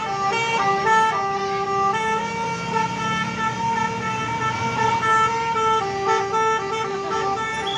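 A bus's multi-tone 'basuri' telolet horn playing a melody, its notes stepping up and down in pitch without a break, over a low rumble.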